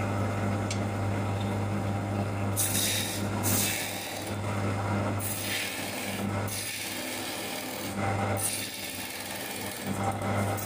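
Electric wood lathe humming steadily while a hand chisel cuts the spinning wood blank, giving several hissing, scraping cutting passes that start about two and a half seconds in.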